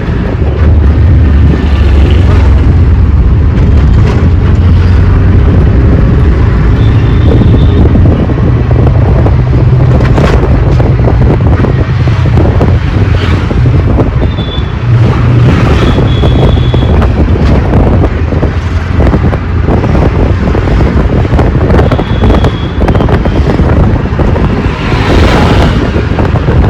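Auto rickshaw engine running under way, a steady low drone that shifts in pitch as the speed changes, with wind buffeting the microphone and road rattle. A few short high beeps come through now and then.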